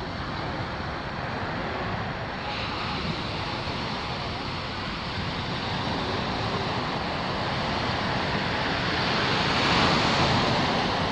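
Surf washing onto a sandy beach: a steady rushing wash that swells to its loudest about ten seconds in, then eases.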